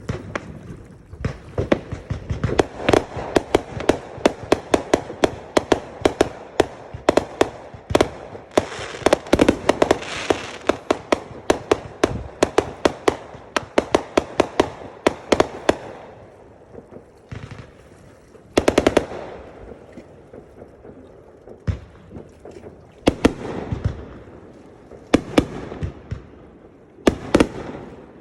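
Fireworks going off all around: dozens of sharp bangs and crackling pops in rapid, overlapping succession for about the first half, then scattered volleys and single reports separated by short lulls.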